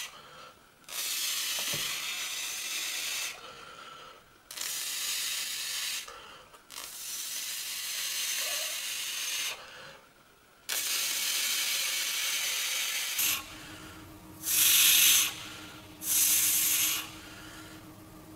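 Repeated bursts of hissing noise, each one to three seconds long with short quiet gaps between. After about 13 seconds a steady low hum sets in, and two louder hisses follow near the end.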